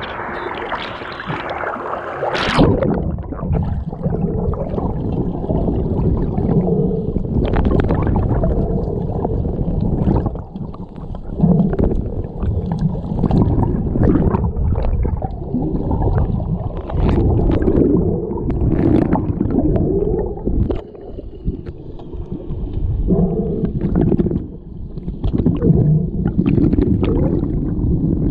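Muffled, rumbling water noise of swimmers moving through a pool, heard through an underwater camera housing. Scattered sharp clicks and knocks come through it, the strongest about two and a half seconds in.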